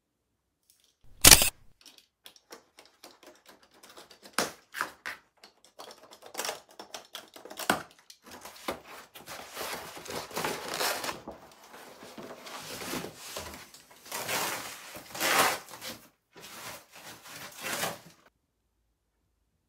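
Unpacking a glass table top: corrugated cardboard and foam-sheet wrapping rustling and crinkling as they are unrolled and pulled away. A loud sharp snap comes about a second in, with many small clicks after it, and the rustling stops suddenly near the end.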